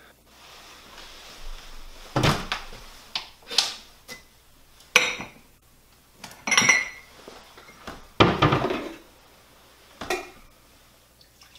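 Kitchen cupboard door and dishes clattering as a coffee mug is taken down from the shelf: about half a dozen sharp knocks and clinks a second or two apart, some with a short ring.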